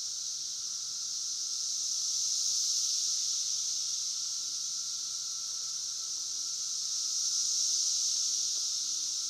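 Chorus of many cicadas: a dense, steady, high-pitched buzz that swells louder about two and a half seconds in and again near the end.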